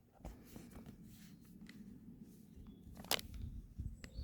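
Faint rustling and a few light clicks of a trading card and a plastic card sleeve being handled as the card is slid into the sleeve, with the sharpest click about three seconds in.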